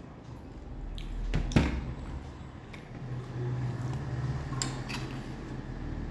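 Rice and dal being mixed and scooped by hand on a plate: soft squishing with light clicks, and a sharper knock about a second and a half in, over a low steady hum.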